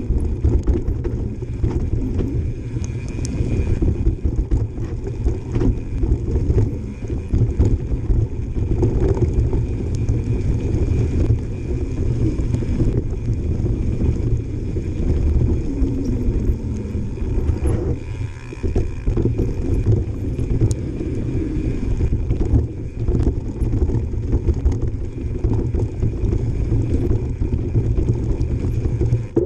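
Mountain bike riding fast down a dirt trail: tyres rumbling over the ground with constant rattling and knocking from the bike, and wind on the microphone.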